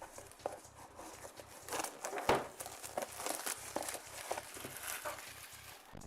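Parcel packaging crinkling and rustling as it is torn open by hand, with scattered short crackles and one louder sharp crackle a little over two seconds in.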